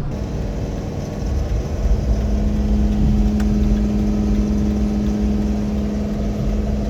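Ford Super Duty pickup's engine running under heavy load with a steady drone while towing a loaded trailer up a hill at low speed: the truck is straining on the grade.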